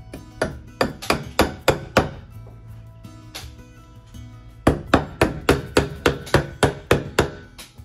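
Hammer blows on a wooden block of 2x10 blocking between floor joists: a run of about six strikes, a pause of a couple of seconds, then a faster run of about a dozen, roughly four a second. Background music plays underneath.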